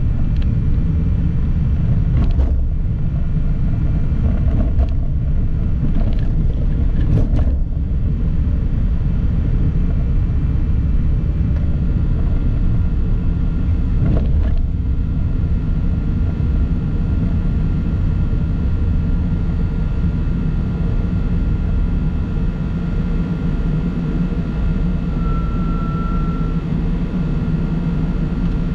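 Steady low rumble of a road vehicle driving along a city road, with a few short knocks and bumps in the first half. A faint steady whine joins about twelve seconds in and briefly grows stronger near the end.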